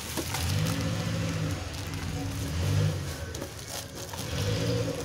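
Stacked plastic bowls rustling and clicking as they are lifted out of a cardboard box, over a low steady hum that drops out for about a second and returns near the end.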